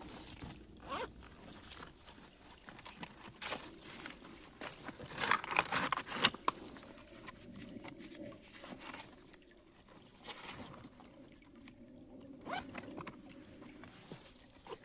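Irregular scraping and rustling handling noises in short bursts, busiest and loudest about five to six and a half seconds in.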